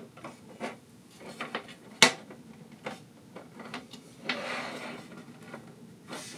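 Aluminum slat tabletop of a folding camping table being fitted and snapped onto its frame rails: one sharp metal click about two seconds in, a few lighter clicks and taps, and a brief sliding rub a little past four seconds.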